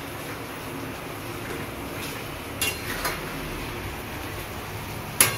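A spatula stirring prawns through thick paste in a steel kadai, with a clink on the pan a little after 2.5 s and again just after 3 s, and the loudest clink near the end, over a steady low background hiss.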